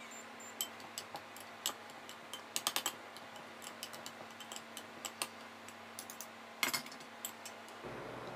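Metal spoon clinking against a small glass bowl while stirring gelatin to dissolve it, in light, irregular clicks with a quick run of four near the middle.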